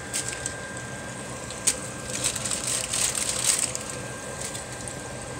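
Hot frying oil crackling and sizzling around batter-coated donut holes, in spells that are densest in the middle, with a couple of sharp clicks.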